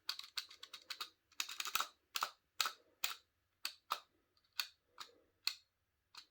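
Keys of a Razer Huntsman Mini with red linear optical switches being pressed: a quick flurry of key clacks, then single presses about twice a second.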